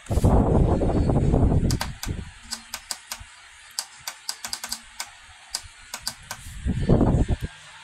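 A run of short, sharp clicks and taps, irregularly spaced, between two spells of loud low rumbling handling noise near the start and near the end.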